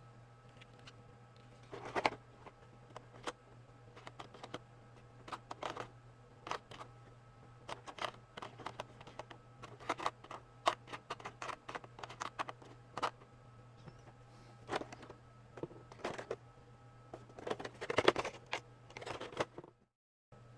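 Hands handling a toy figure and its packaging: scattered clicks, taps and rustles of plastic and cardboard, with a cluster of louder ones about two seconds in and again near the end, over a steady low electrical hum.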